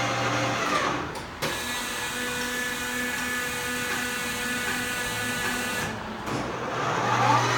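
LeBlond Regal metal lathe running under power, its spindle and gearing giving a steady whine. About a second in the sound dips and changes to a different steady whine, which drops away around six seconds in, and near the end a rising whine comes back up to speed as the spindle speed is changed.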